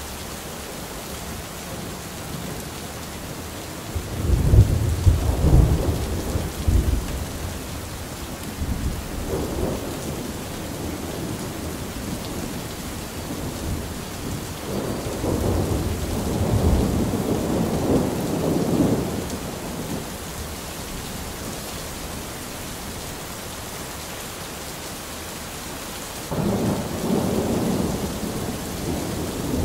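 Steady rain with rolling thunder. Several rumbles come through the rain: a loud one with sharp cracks about four seconds in, a weaker one soon after, a long roll in the middle, and another that starts suddenly near the end.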